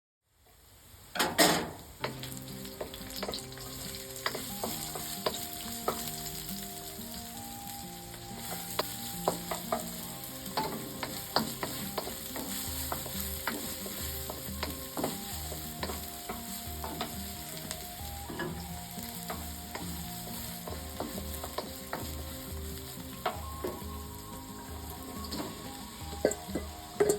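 Food sizzling steadily as it fries in a pan, stirred with a utensil that clicks and scrapes against the pan, with a loud clatter about a second in.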